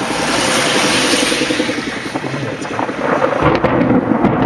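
Thunder rumbling with rain, a dense rush that swells about a second in and again after about three seconds.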